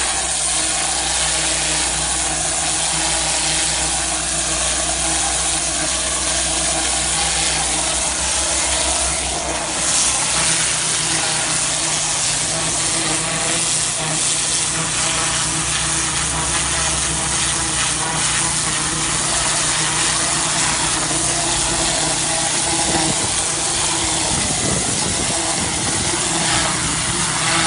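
Pressure washer running with a turbo (rotary) nozzle, its motor humming steadily under the constant hiss of the high-pressure water jet striking a stone wall.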